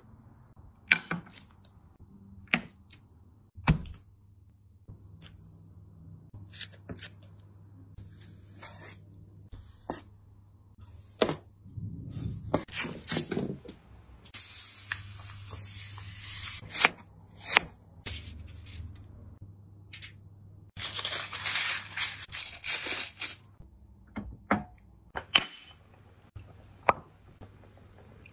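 Handling sounds: scattered taps and knocks, and twice a long crinkling rustle of aluminium foil being unrolled and handled.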